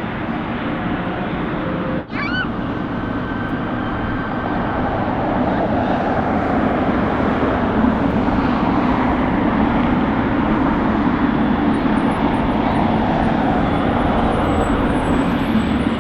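Jet engine noise of an arriving Boeing 777 freighter: a steady, loud rush that grows a little louder about five seconds in. A brief high chirp sounds about two seconds in.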